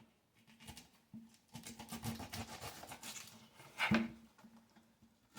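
Kitchen knife cutting a small onion on a cutting board: a run of light, irregular knocks and scrapes, with one sharper knock about four seconds in.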